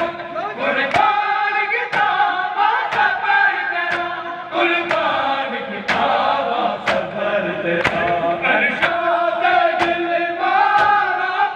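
A group of men chanting a Shia noha (lament) while beating their chests in matam, the sharp hand-on-chest slaps landing together at a steady beat of about one per second under the singing.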